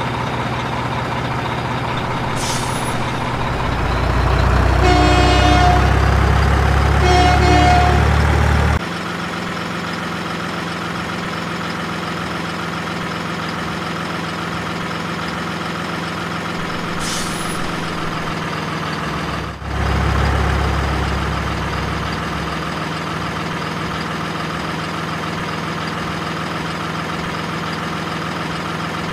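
Truck engine sound, likely a sound effect or a toy truck's sound module, running steadily with two short horn toots about five and seven seconds in. The engine sound shifts abruptly near nine seconds and again near twenty seconds.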